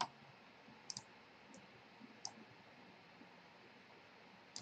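A few faint computer mouse clicks, one of them a quick pair about a second in, over near silence.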